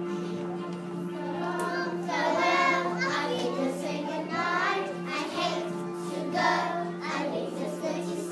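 A group of young children singing together, an action song with the singing swelling and falling in phrases, over a steady low accompanying tone.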